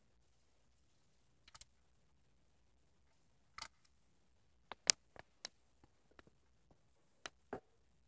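Gloster and Waterslager canaries moving about a wire cage and its plastic feeder: about eight sharp, separate clicks and taps, the loudest a little past the middle.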